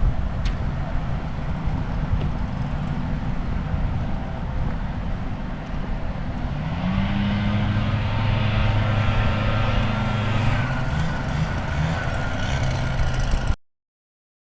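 Low rumbling noise with a steady low motor hum that comes in and rises slightly in pitch about halfway through, then holds. The sound cuts off abruptly near the end.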